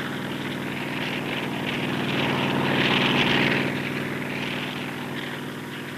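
Aircraft engine running steadily, its drone swelling louder about three seconds in and easing off again, as of an aircraft passing close by.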